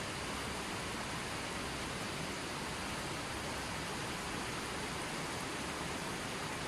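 Running water flowing in a steady, even rush with no breaks or changes.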